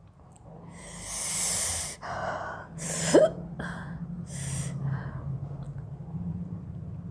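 A woman's hiccups and sharp breaths: a long noisy breath in about a second in, then a sharp hiccup with a quickly dropping pitch just after three seconds, the loudest sound, followed by shorter breaths.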